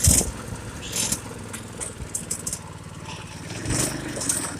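Go-kart's small engine running steadily while driving, with short hissing bursts and a few thumps over it.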